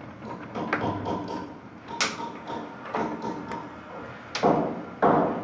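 Scattered knocks and scrapes from work on PVC drain pipe fittings, with a sharp knock about two seconds in and louder scraping near the end.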